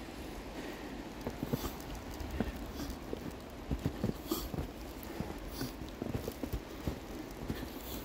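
Footsteps crunching and thudding in deep fresh snow, irregular and uneven, over a steady low rumble of outdoor background noise.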